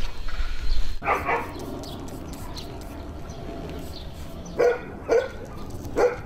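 Borzoi dogs barking: one bark about a second in, then a few short barks in the last second and a half.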